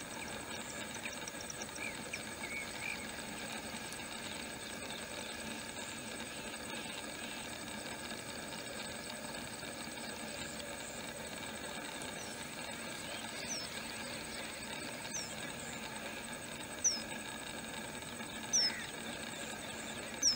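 Short, high, falling bird chirps repeating about every one and a half seconds in the second half, the last few the loudest, over a steady outdoor hum.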